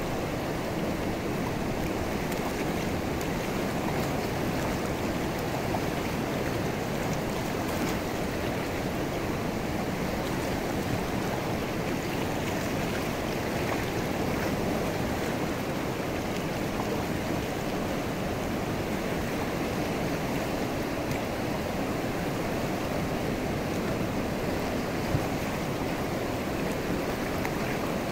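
River water rushing steadily over rocks and shallow rapids: an even, unbroken flowing noise.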